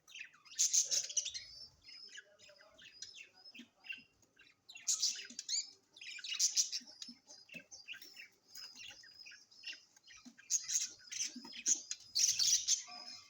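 Many small birds chirping rapidly in high-pitched calls, with louder bursts of squawking chatter several times.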